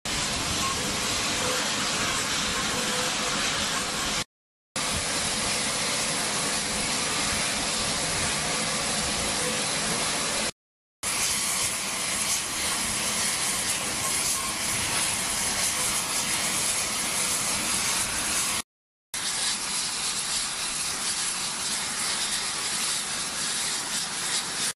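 Steady rush of engine noise on an aircraft flight line, with a thin high whine through the middle part. It drops out to silence three times, each time for under a second.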